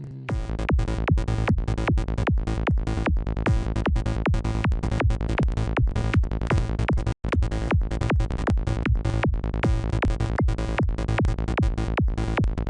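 Software synthesizer (Native Instruments Massive, still on its unedited init patch) playing a fast looped psytrance pattern of short repeated notes, sixteenths with some thirty-seconds, at 150 BPM. The loop cuts out for an instant about seven seconds in and starts again.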